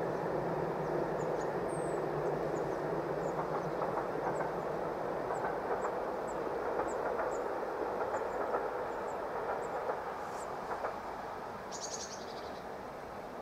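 A passing train running on the rails, a steady rumble of wheels on track that slowly fades as it moves away.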